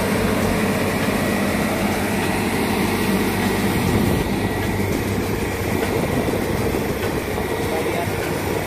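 XCMG rotary drilling rig running while boring a bridge pile hole. Its engine and hydraulic drive give a steady, loud drone with a low hum and a thin high whine.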